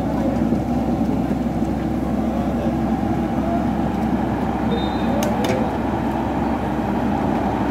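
Diesel engine of a Komatsu mini excavator running steadily under load as it tows a stuck off-road buggy out of the mud on a strap. Two sharp clicks come about five seconds in.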